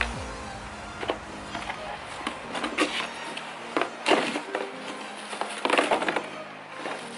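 Background music with about half a dozen knocks and rustles from handling hard plastic tools and packaging.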